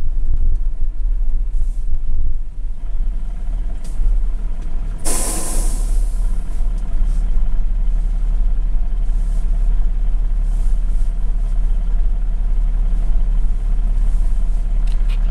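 Mercedes-Benz Unimog's diesel engine running steadily, heard from inside the cab, with a short hiss of compressed air about five seconds in, like the truck's air brake venting.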